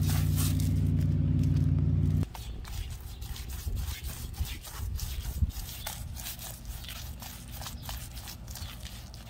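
A loud, steady low hum fills the first two seconds and cuts off suddenly. After that, a paintbrush scrapes and dabs thick, rubbery waterproofing sealant onto a rough concrete pool floor in quick, repeated strokes.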